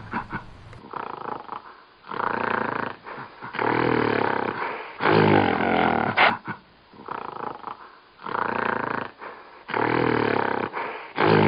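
A monkey giving a series of about six loud calls, each lasting about a second, with short pauses between them.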